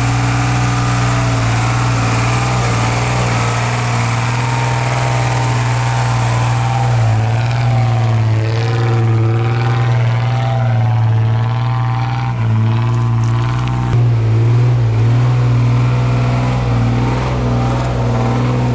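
A diesel ZIL-131 truck engine runs steadily under load while towing through sand, with a deep hum whose pitch wavers up and down in the middle as the revs change.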